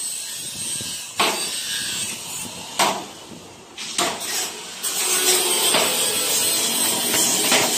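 Footsteps knocking on the steel checker-plate treads of a spiral staircase as someone climbs, a sharp knock about every second and a half. A steady hiss comes in about five seconds in.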